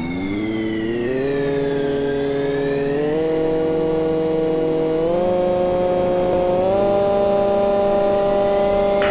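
Miele washing machine's drum motor spinning up, its pitched whine rising in several steps as the spin speed is ramped higher.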